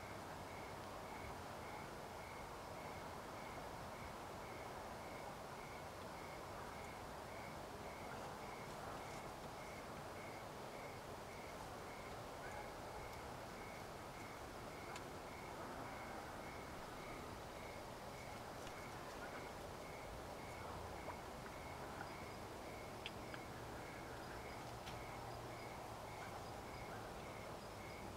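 Quiet evening outdoor ambience: a steady low hiss of open air with a faint high chirp repeating evenly about twice a second, and a few small clicks.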